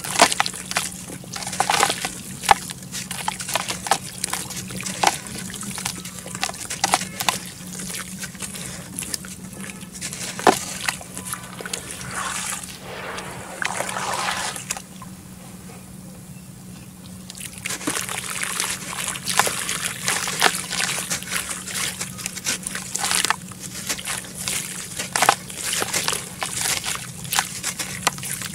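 Hands crumbling soft red dirt into a tub of muddy water, with splashing, sloshing and trickling as the wet chunks break apart and the hands stir the water. It goes quieter for a couple of seconds about halfway, then the splashing picks up again.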